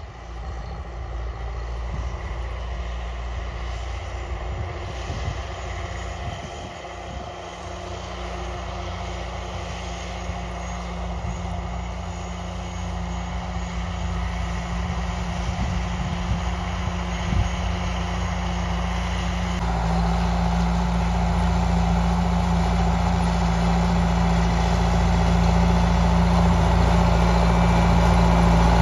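David Brown 1494 tractor's four-cylinder diesel engine running steadily under load while driving a Massey Ferguson disc mower through grass. It grows louder as the tractor approaches, with a further step up about two-thirds of the way in.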